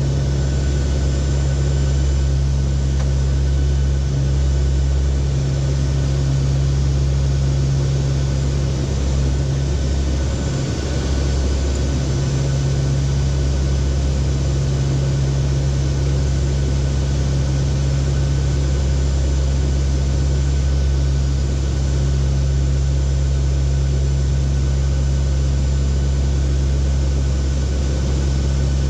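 Steady drone of a NOAA WP-3D Orion's four turboprop engines heard inside the cockpit in flight: a deep, even hum with rushing noise over it, dipping slightly about ten seconds in.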